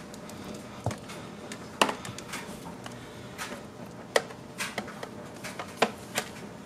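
Irregular sharp clicks and light knocks as an illuminated door sill plate is handled and pressed into place on a car's door sill trim, with soft rubbing between the clicks.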